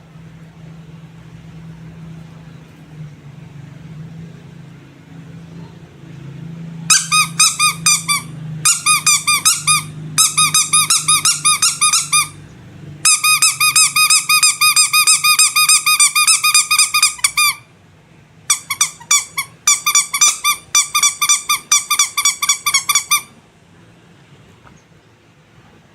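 Squeaky rubber animal toy squeezed over and over, giving fast runs of high, bright squeaks several a second with short breaks between runs. A low hum comes before the squeaking starts, about a quarter of the way in.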